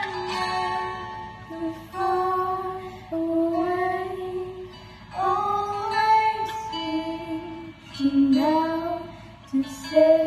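Two girls singing a Christian worship song together in long held phrases, over acoustic guitar accompaniment.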